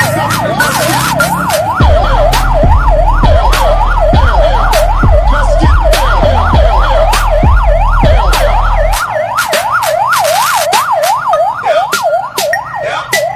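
Electronic siren in fast yelp mode, its pitch sweeping up and down about four times a second, on a vehicle in a slow parade of cars and motorcycles. Deep car-audio bass thumps under it at about two beats a second and stops about nine seconds in.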